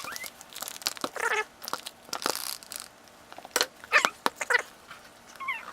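Cardboard box being worked open with a knife: scattered scraping, tearing and sharp clicks of the blade and tape on the cardboard.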